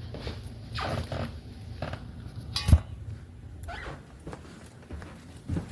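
Rustling handling noises with one sharp knock about two and a half seconds in.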